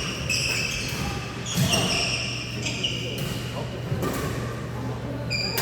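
Badminton shoes squeaking on a court floor several times, short high-pitched chirps, with a sharp racket-on-shuttlecock hit near the end and a steady low hum of the hall underneath.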